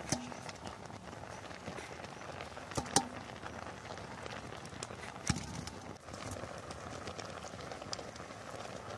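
Elephant yam pieces boiling in an aluminium pot over a wood fire: a steady bubbling hiss with a few sharp knocks of a wooden spatula against the pot, the loudest about three and five seconds in.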